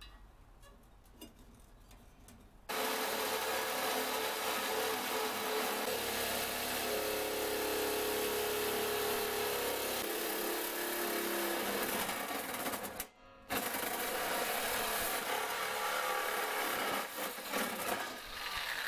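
Cheap Harbor Freight reciprocating saw starting up about three seconds in and cutting through a lathe's steel bed, running steadily with a brief stop about two-thirds of the way through.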